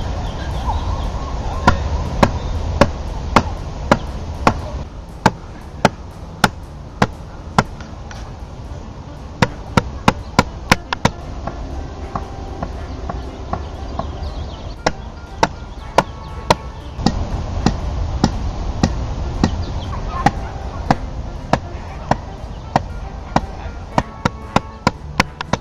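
Towel-wrapped wine bottle struck base-first against a tree trunk again and again to work the cork out of the neck: sharp knocks about twice a second, in several runs with short pauses between.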